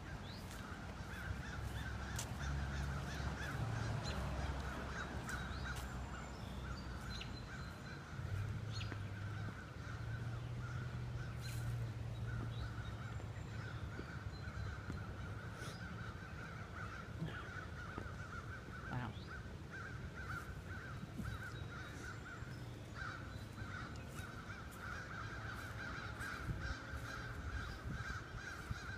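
Many birds calling continuously, with a low rumble on the microphone underneath.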